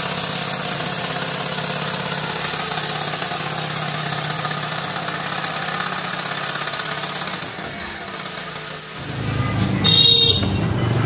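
A small engine converted from a grass cutter and mounted on a homemade plastic jerry-can raft, running steadily at idle. After about nine seconds the sound changes to a deeper rumble, with a brief loud burst about a second later.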